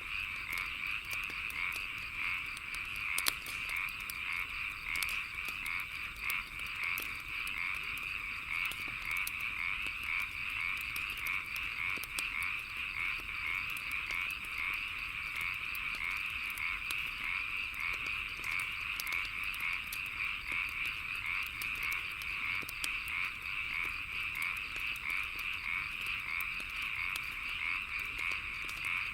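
A dense, steady chorus of frogs croaking, with scattered crackles and pops from a wood fire; one pop about three seconds in stands out.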